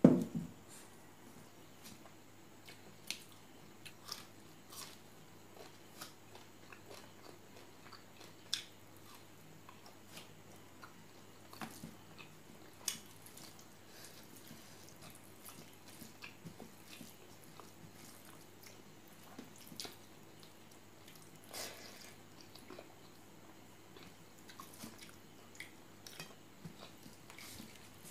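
Close-miked eating: a person chewing a mouthful of pork curry and rice, with scattered short wet mouth clicks and smacks at irregular intervals.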